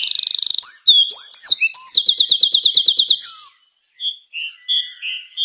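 A songbird in full, vigorous song. It opens with a fast rattling trill, then sweeping whistled notes and a quick run of about a dozen repeated high notes, and ends with softer short notes near the end.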